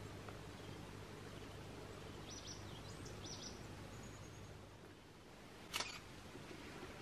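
Faint, steady outdoor background hiss with a few short, high chirps in the middle, then a single sharp click about six seconds in.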